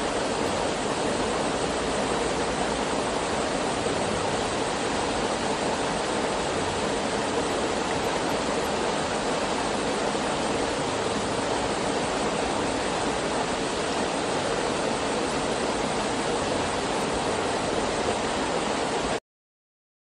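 Small hot-spring waterfall splashing steadily into a rock pool, a constant rushing of water that cuts off suddenly near the end.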